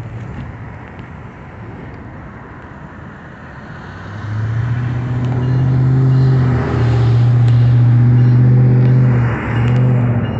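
A road vehicle's engine running close by as a loud, steady low hum from about four seconds in, dipping briefly twice. Before it, the fainter rumble of freight cars passing over the crossing.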